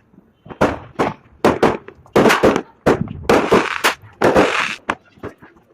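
A quick, irregular run of sharp kitchen knocks and scraping strokes, about a dozen, the middle ones longer and noisier, cutting off abruptly near the end.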